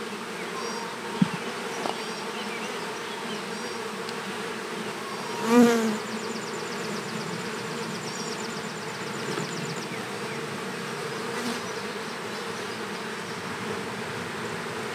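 Honeybees from an opened nucleus colony humming steadily, a calm colony. One brief louder sound comes about five and a half seconds in.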